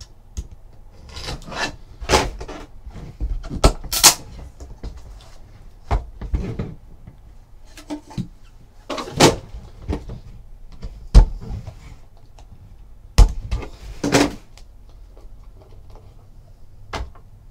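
Cardboard trading-card box and its inner case being handled and opened by hand: about a dozen irregular knocks, taps and scuffs of cardboard against cardboard and the desk.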